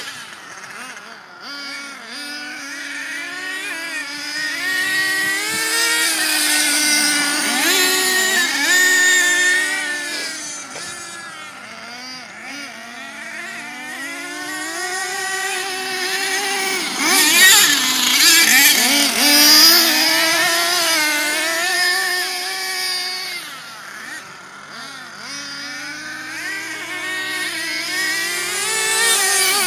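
Nitro RC cars' small glow-fuel engines racing, their buzz climbing and dropping in pitch again and again as they rev, back off and rev up. The sound grows louder and fades as the cars come close and move away, loudest about two-thirds of the way through.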